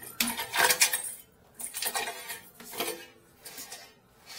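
Flex-shaft drain cleaning cable being pushed by hand into an open toilet drain pipe, clattering and rattling in irregular bursts, loudest in the first second.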